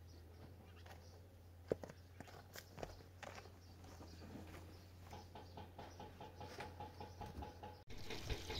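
Faint footsteps and scuffs on a dirt and gravel track, with scattered light clicks. Near the end, water starts running from a hose into a plastic jerrycan.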